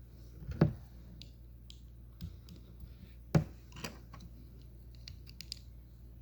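Plastic LEGO pieces being handled and snapped together: two sharp clicks, about half a second and three and a half seconds in, with lighter ticks and taps between.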